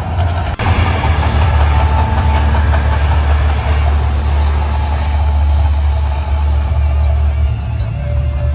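Mirage volcano show eruption: a loud, deep steady rumble with a rushing noise that starts abruptly about half a second in, under the show's music.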